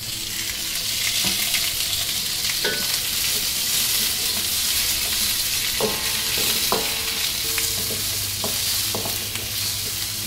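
Onions and bell peppers sizzling in hot oil in a wok, the sizzle swelling in the first second or two as fresh oil is poured in. A wooden spatula stirs them, with scattered knocks and scrapes against the wok that ring briefly.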